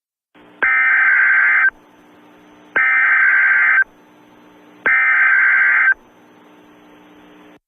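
Emergency Alert System SAME header: three one-second bursts of warbling digital data tones, about two seconds apart. A faint hum runs between them.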